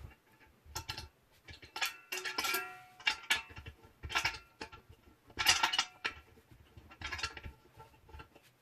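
Metal parts of an angle grinder cutting stand being handled, giving a series of separate clanks and clinks, some briefly ringing. The loudest clatter comes about five and a half seconds in.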